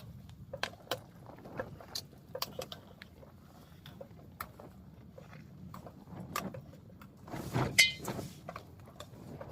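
Scattered clicks and knocks of metal camping cookware being handled, with a louder metallic clank and brief ring about eight seconds in.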